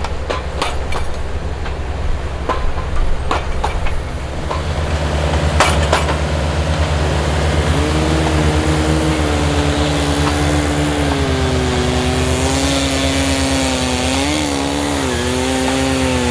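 Engines of track-mounted hydraulic auger and post-driving rigs running steadily, with several sharp clanks in the first few seconds. About halfway in, a higher steady whine joins and dips in pitch a couple of times near the end.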